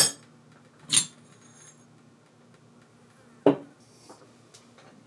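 Metal parts of a milling machine head clinking against each other and against the cast iron gearbox housing as they are handled. There are three separate clinks: one at the start, a sharp one about a second in that rings briefly, and a duller knock about three and a half seconds in.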